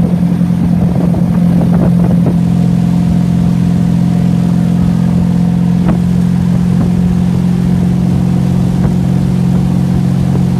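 Motorboat engine running steadily at a constant pitch, with a few short knocks over it, mostly in the first two seconds.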